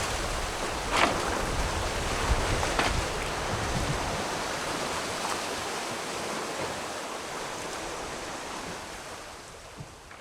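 Wind and rushing sea water around a Leopard sailing catamaran under way in open ocean: a steady, noisy wash with two brief sharper sounds about one and three seconds in, fading away gradually toward the end.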